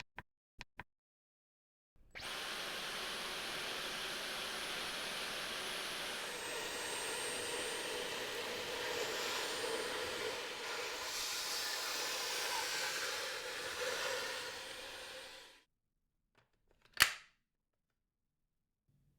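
Dyson V15 Detect cordless vacuum running steadily for about thirteen seconds, with a thin high whine over the rush of air, then switching off and winding down. A few light clicks come before it starts, and one sharp click comes shortly after it stops.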